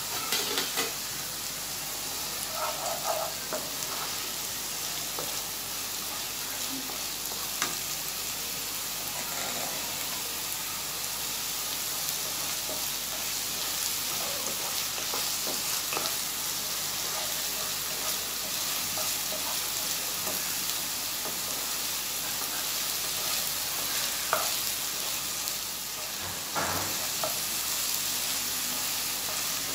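Garlic, ginger and onion paste sizzling in hot oil in a non-stick wok, being fried until brown. It is stirred with a wooden spatula, which scrapes and taps against the pan now and then.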